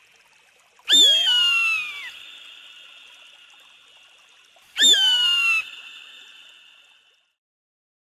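Eagle screaming twice, each a harsh, high cry that slides downward in pitch for about a second, followed by an echoing tail.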